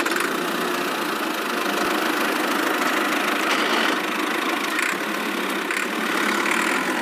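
Steady, rough engine-like running sound of a miniature DIY tractor driving through sand, holding an even level with no clear pitch.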